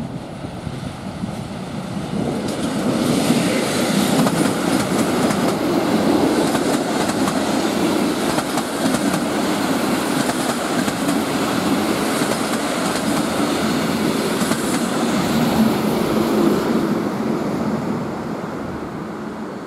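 SM42 diesel locomotive and its passenger coaches passing close by. The locomotive's engine and the wheels on the rails grow loud about three seconds in, then the coaches roll past steadily and the sound eases off near the end.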